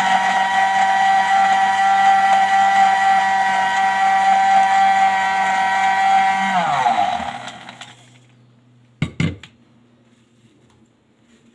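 Countertop blender running steadily as it blends a thick green mixture, then switched off about six and a half seconds in, its motor whine falling in pitch and dying away over a second or so. A brief knock follows about two seconds later.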